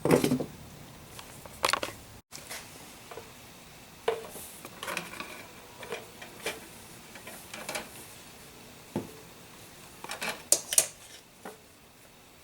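Irregular clicks, taps and knocks of plastic motor-oil jugs and caps being handled, with a loud knock at the start and a cluster of clatter near the end.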